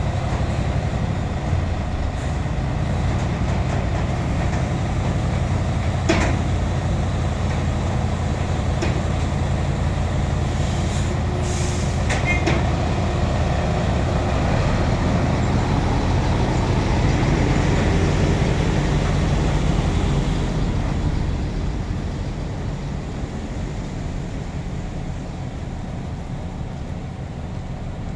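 Heavy diesel engines of a lifting crane and a Volvo FM truck running steadily, with a knock about six seconds in and a short air-brake hiss about eleven seconds in. Near the end the engine noise swells and then eases off as the truck pulls out from under the raised tank container.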